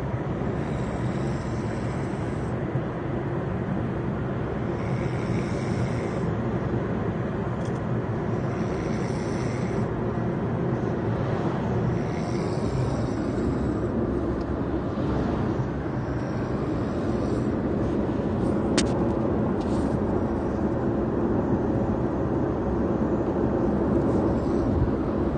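A man snoring loudly: a low, rough drone that keeps on without a break.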